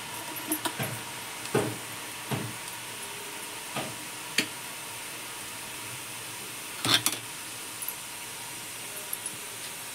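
Sev (gram-flour noodles) frying in hot oil with a steady sizzle, broken by occasional short knocks, the loudest about seven seconds in.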